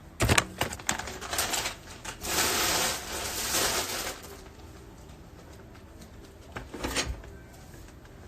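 Knife chopping onion on a cutting board: a quick run of sharp knocks, then about two seconds of steady rustling noise, with a few more knocks near the end.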